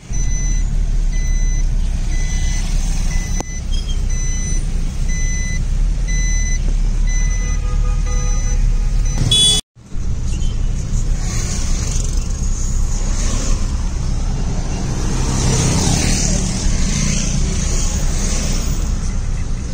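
Car cabin road and engine noise while driving slowly through city traffic, a steady low rumble. Over the first half a high electronic beep repeats about once a second. The sound drops out briefly about halfway, and traffic noise continues after.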